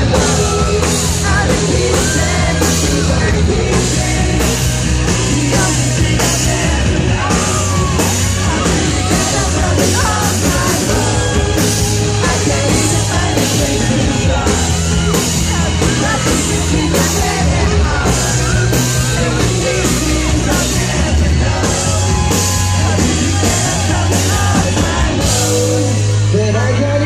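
Live pop band playing loud amplified music with a steady drum beat, heard from the audience, with singing and yelling over it.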